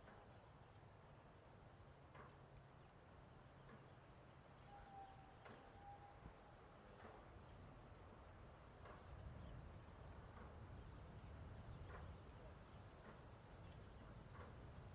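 Faint outdoor farm ambience: insects, crickets by the sound of it, trilling steadily in one high band. Over it come scattered short chirps and one brief whistled note about five seconds in, above a faint low rumble.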